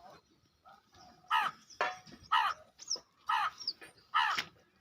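Crow cawing, a series of about six short harsh caws each falling in pitch, beginning about a second in and coming every half second to a second.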